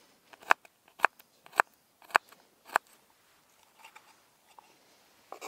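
Knife chopping a garlic clove on a wooden chopping board: sharp taps about twice a second, stopping about three seconds in, then only faint small ticks.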